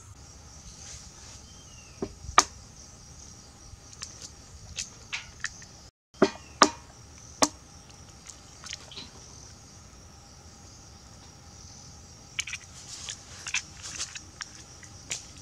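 Sharp clicks and knocks of food preparation: a knife tapping on a wooden chopping board, then, from about six seconds in, eggs cracked against and dropped into a stainless steel tray. A steady high chirr of insects runs underneath.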